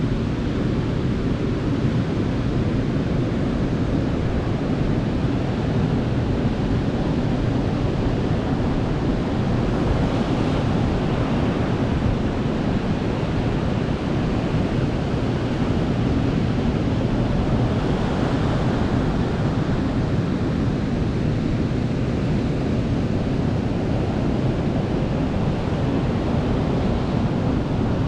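Sea surf on a beach: waves breaking and washing in a continuous rush, swelling a little about every eight seconds.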